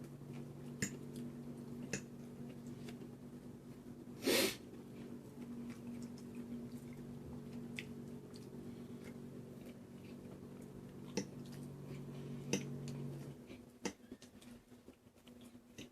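Eating sounds: scattered light clicks of cutlery against the plate and quiet chewing of pasta, with one short loud sniff about four seconds in. A steady low hum runs underneath and stops near the end.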